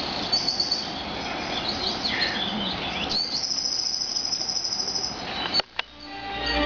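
Birds chirping and a rapid, high, even trill of an insect-like call, played over the hall's speakers as the opening of the dance's music. About five and a half seconds in it cuts off with two sharp clicks, and violin music begins softly.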